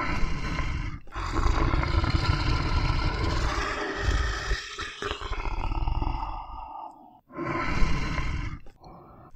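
Tiger roaring and growling in about four long, rough calls, separated by short breaks.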